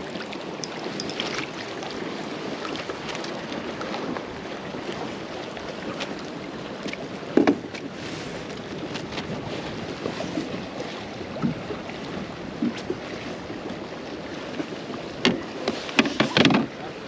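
Choppy lake water lapping against a fishing kayak's hull, with wind on the microphone. A few short splashes and knocks from netting and handling a trout: one about halfway through, and a louder cluster near the end.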